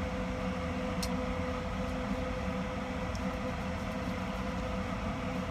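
Steady mechanical hum of a running household appliance, with one constant mid-pitched tone over a low drone. A faint click comes about a second in.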